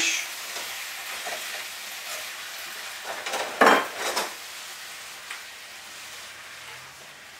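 Diced basa (Vietnamese catfish) sizzling in olive oil in a frying pan with diced potato and onion, the fish just starting to cook, while a utensil stirs it. A louder stretch of stirring and scraping comes about three and a half seconds in.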